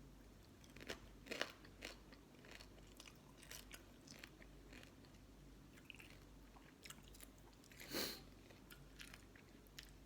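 A person chewing and crunching a mouthful of green-mango salad with pickled crab, close to the microphone, in scattered crisp bites with one louder crunch near the end.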